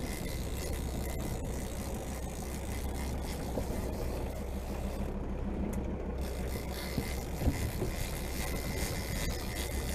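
Fishing boat's engine running steadily at low revs, a constant low hum under a haze of wind and water noise, with one short louder knock or bump about seven and a half seconds in.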